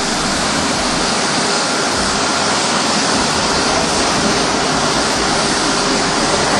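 Loud, steady rushing noise with no distinct tones, recorded as the mysterious sound in the sky over Java, which some took for a low-flying Antonov An-12 turboprop.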